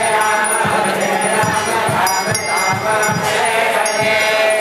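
Kirtan from a procession crowd: many voices chanting together over ringing hand cymbals and a steady drum beat.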